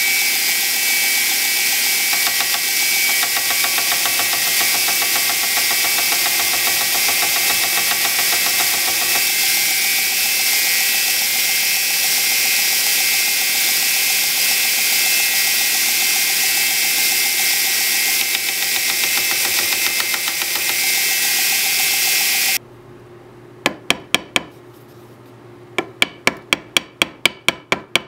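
Belt grinder running steadily while the antler handle and its pin are sanded to remove the big scratches; it cuts off abruptly after about 22 seconds. Then a ball-peen hammer taps the pin to peen it into a dome, a few taps at first, then quick light taps about three or four a second.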